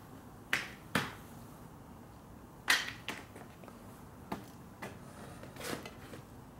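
Hand tools clicking and knocking against metal parts: about six sharp, separate clacks, the loudest ones about half a second in, at one second and near three seconds.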